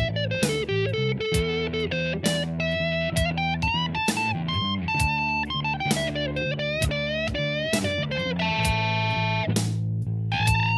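Guitar playing a slow melody, picked notes that slide and bend in pitch, over a steady low held bass note.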